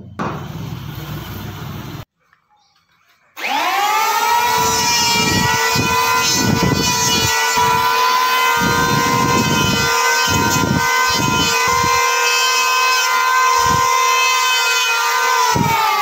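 Electric hand planer starting up, its motor whine rising quickly to a steady high pitch and holding, with irregular rougher bursts underneath as the blades bite the wood. The pitch begins to sink at the very end as it winds down.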